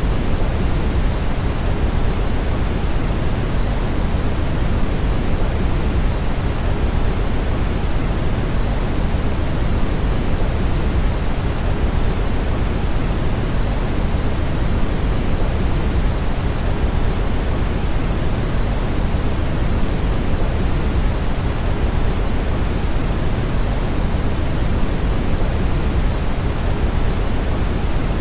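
Steady brown noise: an even, unchanging rush weighted toward the low end.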